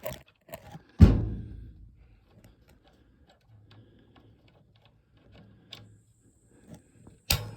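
Gas water heater's push-button pilot igniter being clicked over and over, a string of small sharp ticks. There is a loud thump about a second in and a sharper knock near the end.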